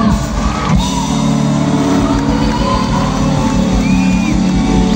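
Live band playing a rock-style song through the PA, with a singer's voice over steady bass and drums.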